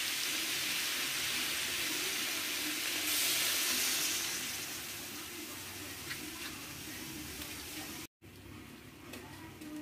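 Vegetables sizzling in a hot metal wok: a steady frying hiss that swells briefly about three seconds in, then dies down. After a short break near the end it is quieter, with a few faint clicks of the metal ladle against the wok.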